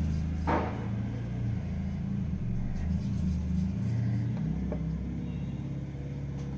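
A low mechanical rumble, engine- or motor-like, whose pitch shifts a few times, with a brief rustle about half a second in.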